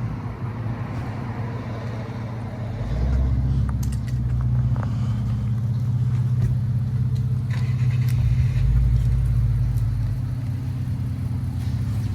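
Infiniti Q50 3.0t twin-turbo V6 with a new axle-back exhaust and lower downpipes, running with a steady low drone that grows louder about three seconds in.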